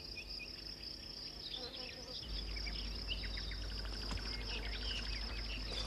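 Summer field ambience: insects keep up a steady high buzz with many short chirps scattered over it. A low hum comes in about two seconds in.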